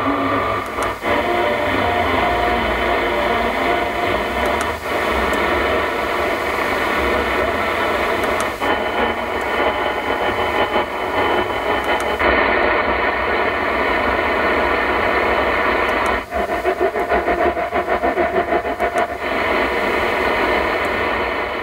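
Medium-wave AM reception on an Audi MMI Basic car radio tuned manually up the top of the band: mostly static and hiss with steady whistles. There is a short break about every four seconds as it steps to the next frequency, and a pulsing buzz for a few seconds near the end.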